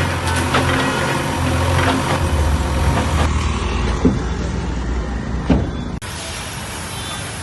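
Heavy diesel engine of an earthmoving machine running, with scattered knocks and two sharp bangs in the second half. The sound changes abruptly twice, about three and six seconds in.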